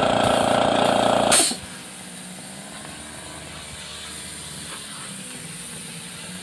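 Air compressor feeding a paint spray gun runs steadily, then cuts out about a second and a half in with a short, sharp hiss of released air as it shuts off. After that there is only a faint, steady background.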